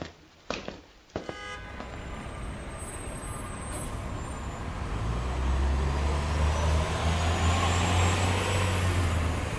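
Bus engine running, growing louder over several seconds with a low hum and a faint rising whine, after a few sharp knocks near the start.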